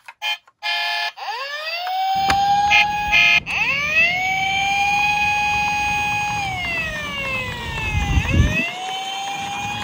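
Toy police car's electronic siren wailing, rising, holding and slowly falling, then rising again, after a few short electronic tones as it is switched on. Its plastic wheels rumble on a wooden slope as it rolls, the rumble growing louder near the end and then stopping.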